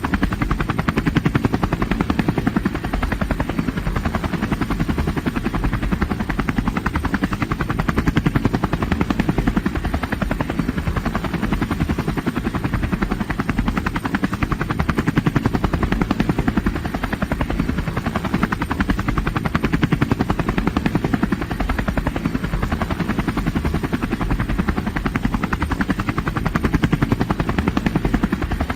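Helicopter rotor blades chopping in a fast, even beat over a steady engine and turbine noise, holding level without rising or falling.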